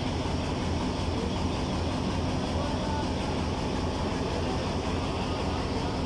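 Diesel locomotive engine idling while the train stands still: a steady low drone that holds level without revving.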